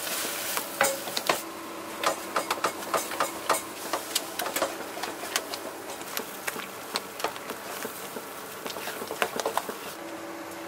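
Spatula stirring and scraping thick raspberry paste cooking down with sugar in a frying pan, with many sharp clicks and taps against the pan. A light frying sizzle dies away a little over a second in, and near the end paste is scraped from a plastic bowl into the pan.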